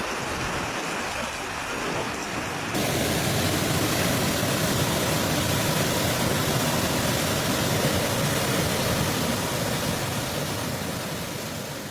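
Steady rushing noise of storm water, which turns louder and brighter about three seconds in and starts to fade near the end.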